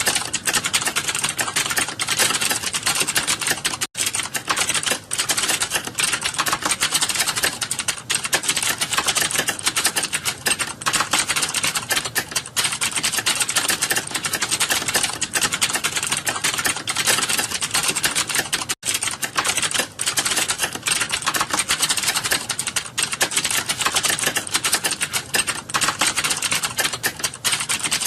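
Fast, continuous typing on a computer keyboard: a dense, even stream of key clicks, broken only by two very short pauses, about four seconds in and near nineteen seconds.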